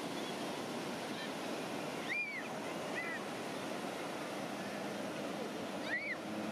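Steady wash of ocean surf on the beach, with wind on the microphone. A few short, high, arched calls sound over it about two seconds in, at three seconds and near the end.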